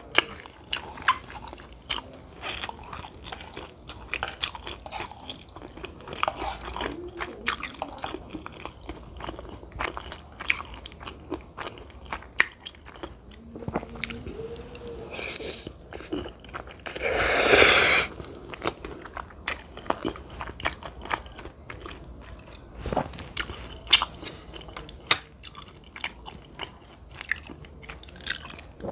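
Close-up mouth sounds of someone eating cheesy meatball spaghetti: chewing with many small wet clicks and smacks. A little past halfway there is one louder, noisy rush lasting about a second.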